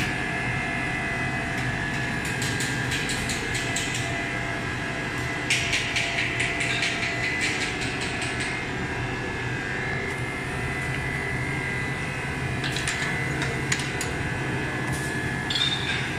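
Lipstick filling line machinery running: a steady mechanical hum with several runs of rapid clicking and rattling from the mold conveyors.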